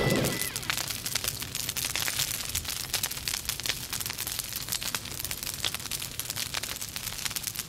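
Crackling fire sound effect: dense, irregular crackles and pops over a low rumble, with the tail of heavy guitar music dying away at the very start.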